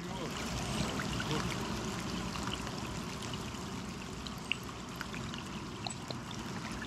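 Steady wash of water with scattered small drips and ticks over it, the sound of light rain and flowing water on the river.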